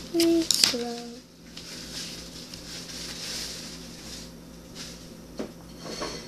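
A few short vocal sounds from a child's voice in the first second, then faint rubbing and scuffing as the phone is moved over the paper, with a couple of small knocks near the end.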